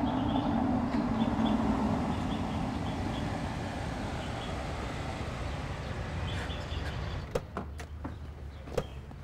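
A car's steady running noise as it pulls up, loudest in the first couple of seconds and then easing off, followed near the end by a few sharp clicks and a knock as a car door is unlatched and opened.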